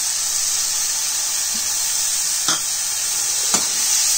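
Tomato and onion masala frying in ghee in a steel kadhai, a steady sizzle as paneer cubes are added and stirred in. The steel ladle clicks against the pan twice in the second half.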